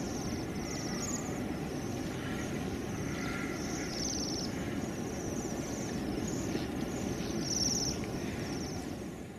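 High, thin trilling calls of small birds, repeated every second or so, over a steady low rumble.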